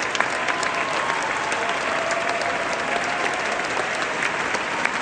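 Theatre audience applauding steadily, with sharp individual claps close by standing out from the dense clapping of the hall.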